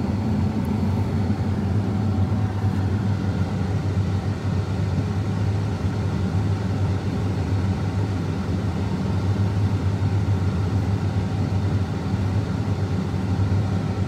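John Deere X9 combine harvester running steadily while harvesting wheat, heard from inside its cab: an even, low hum that holds the same pitch throughout.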